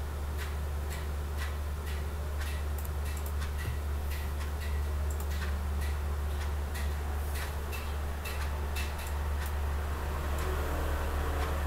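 Computer mouse clicking at irregular intervals, a couple of clicks a second, over a steady low hum.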